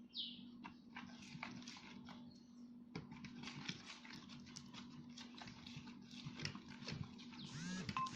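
Slime being stirred in a bowl as the activator makes it clump: a scattered run of faint sticky clicks and squelches over a steady low hum, with a few squeaks near the end.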